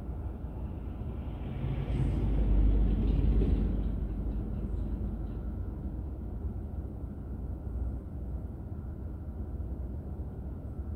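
Car driving on a city road, its low engine and tyre rumble heard through a dashboard drive recorder. The noise swells louder from about two to four seconds in, then settles back to a steady level.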